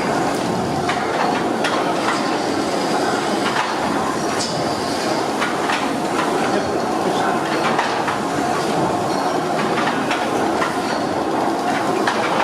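Steam engine at work: a steady mechanical clatter with irregular clicks and knocks.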